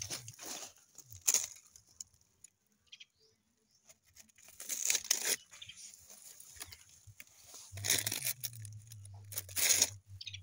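Dry pumpkin leaves and straw mulch rustling and crackling in several short bursts as a gloved hand pushes through them.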